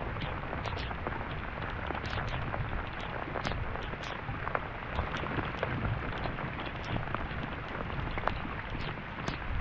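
Rain pattering, with many irregular sharp drop ticks over a steady hiss, and wind rumbling on the microphone.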